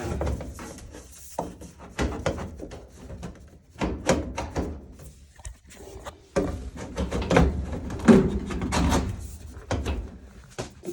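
Irregular clunks, knocks and scraping of sheet-metal dryer parts being handled, as the heating element housing of a Samsung dryer is pulled down and worked free.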